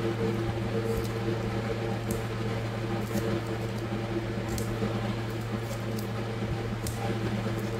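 Sticker sheets in clear plastic sleeves being handled and shuffled on a desk: light crinkles and small taps about once a second, over a steady low hum.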